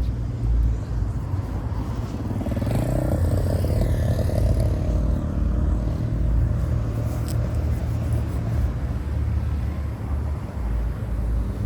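Car engine and road noise: a steady low rumble.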